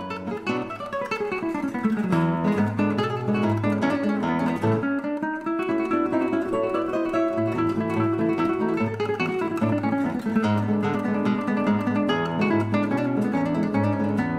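Background music: acoustic guitar playing quick plucked notes, opening with a falling run of notes.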